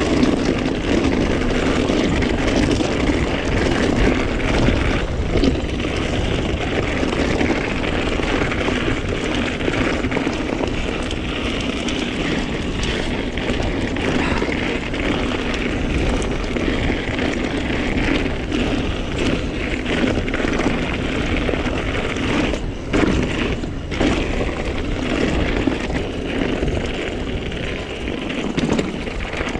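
Mountain bike being ridden along a trail: steady wind rush on the microphone mixed with the tyres rolling over the rough ground.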